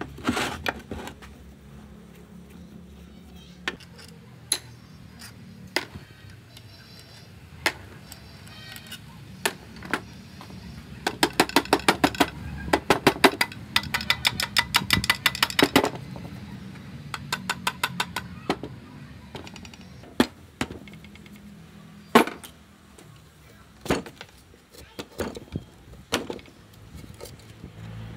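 Hand tools knocking and clinking on metal engine parts: scattered single knocks, with a fast run of taps, several a second, for about five seconds around the middle and a shorter run a little later.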